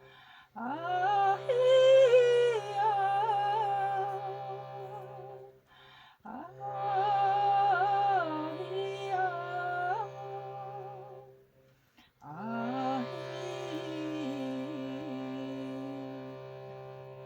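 Throat singing (khöömei): a steady low vocal drone with a whistling overtone melody moving above it, sung in three long breaths with short gaps between them.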